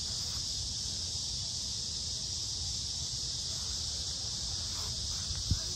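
Steady high-pitched chorus of summer insects, with a low rumble underneath. A single sharp click comes near the end.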